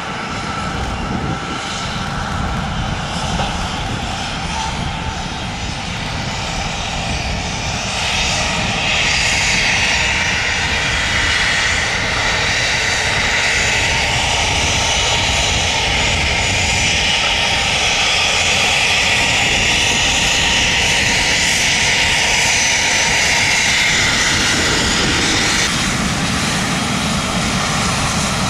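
Jet engines of a Dassault Falcon 2000EX business jet taxiing past. A steady jet hiss and whine swells about eight seconds in, holds, and eases near the end, over a low rumble.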